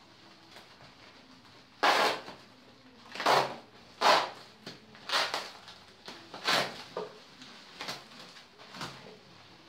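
Plastic bubble wrap crinkling in a string of short rustles as a package is unwrapped by hand; about eight rustles, the loudest about two and four seconds in.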